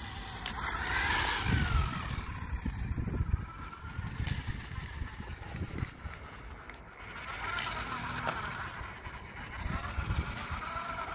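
Small electric RC car running, its motor whine rising and falling as it speeds up and slows, with tyre noise, loudest as it passes about a second in and again near the end.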